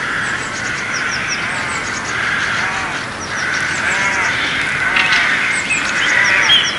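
Chorus of many birds chirping and calling together. Quick high chirps run throughout, and lower arching calls repeat several times from about two and a half seconds in.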